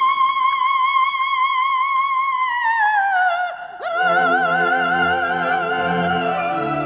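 An operatic soprano holds a high note with vibrato, then slides down and, after a brief catch, sustains a lower note with wide vibrato. The orchestra comes in underneath about halfway through.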